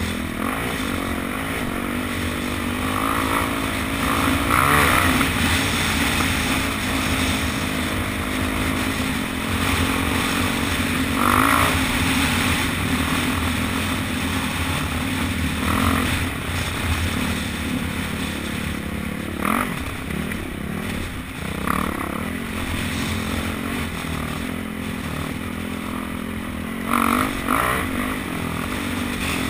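Dirt bike engine running steadily at riding speed, heard from on the bike, with several short louder bursts of noise along the way.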